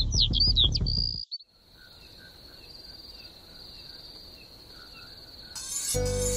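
Birds chirping over background music for about a second. After a sudden cut comes a faint, steady, high chirring of crickets with small repeated chirps. Near the end, electronic music starts.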